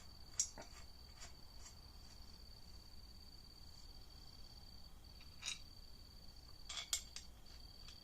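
A few light metallic clinks, scattered and then a short cluster near the end, as the water pump bolts are handled and set into the engine block. Behind them a cricket chirrs steadily.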